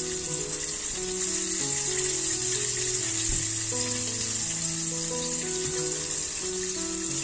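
Background music of slow, held notes changing about every half second, over a steady high hiss.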